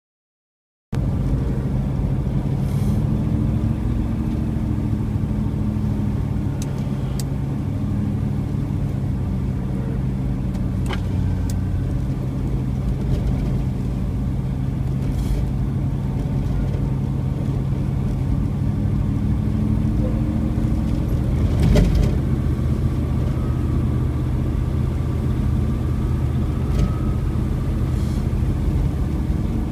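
Car driving: steady engine and road noise starts about a second in, with a few faint clicks and one louder thump about 22 seconds in.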